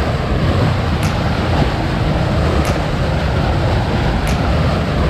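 Water rushing and splashing along the hull of a motor yacht under way, with heavy wind buffeting the microphone as a steady low rumble.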